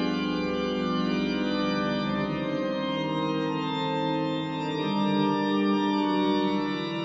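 Pipe organ playing live, slow held chords that shift every second or so, sounding through a large stone cathedral.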